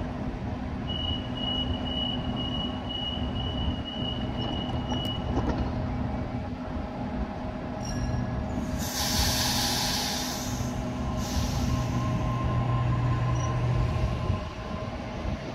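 Sydney Trains Waratah double-deck electric train at a platform: a steady high door-closing warning tone for about four seconds, then clicks as the doors shut. Two loud hisses of air follow around the middle, then a steady low hum as the train starts to pull away.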